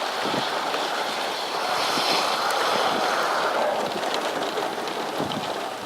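Steady rushing noise of wind and rain during a tornadic thunderstorm, swelling slightly a couple of seconds in.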